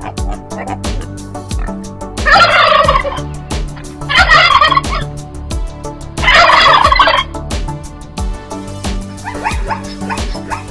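Male turkey gobbling three times, about two seconds apart, each gobble a rapid rattling call just under a second long, over background music with a steady beat.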